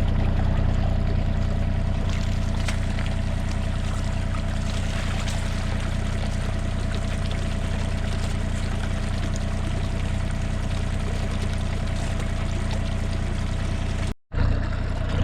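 Backed-up water pouring steadily out of a drain pipe that has just been cleared of a root clog, over the steady hum of the Hitachi 35U mini excavator's diesel engine idling. The sound cuts out briefly near the end.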